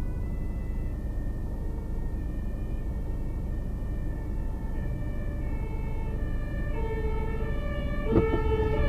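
Two-tone siren of an approaching fire-service ambulance, switching back and forth between two pitches and growing louder. Underneath is the low idle of the Mercedes Actros truck's diesel engine, heard from inside the cab. A single knock comes near the end.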